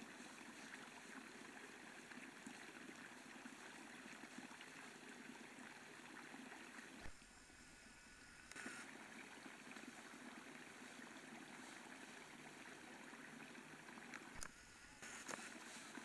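Near silence: a faint, steady outdoor hiss with a few soft clicks. The hiss drops out briefly twice, once about seven seconds in and again near the end, each time starting with a low thump.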